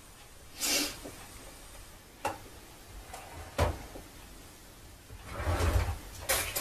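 A few short rustles and sharp knocks close to the microphone, the loudest a longer rustle near the end; there is no engine or voice to be heard.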